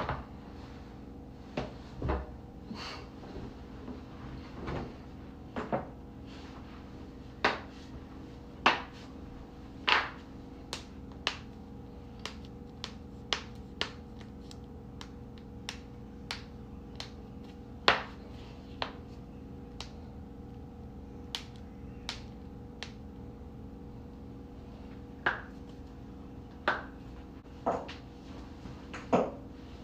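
A long run of sharp cracks and pops at irregular intervals, a few much louder than the rest: joints cracking during chiropractic adjustments. A steady low hum runs under them.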